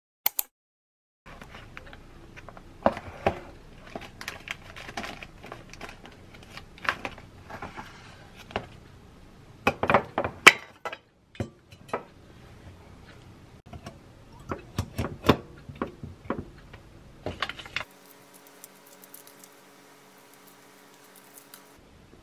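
Glass cups and kitchenware clinking and knocking on a kitchen counter: a busy string of sharp taps and clatters. Near the end it gives way to a faint steady hum.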